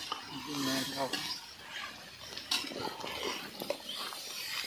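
Metal spoon scraping and clinking in a cooking pot as curry is stirred, with faint voices talking in the background.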